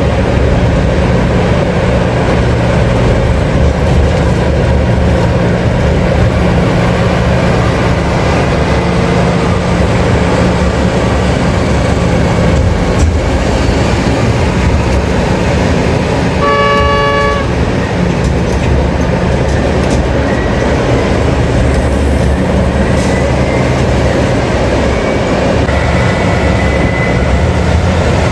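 Heavy diesel engines of a mining excavator and haul truck running steadily. A horn sounds once, for about a second, a little past the middle.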